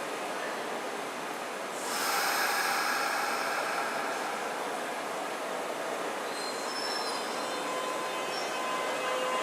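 Kintetsu electric train running on the rails, its noise swelling about two seconds in, with thin high-pitched wheel squeals from about six seconds in.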